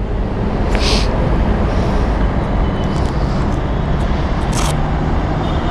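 Motorcycle engine idling amid a steady rumble of traffic and wind, with two short rustles of a leather riding glove being pulled on, about a second in and again near the end.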